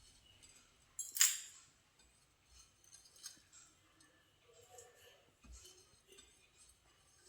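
Light clinks and taps of kitchen utensils being handled, with one sharp clink about a second in.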